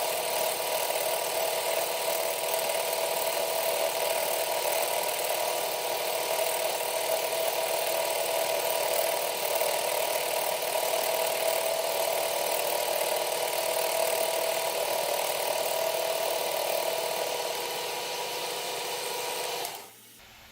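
A power tool working on metal runs steadily, then stops near the end.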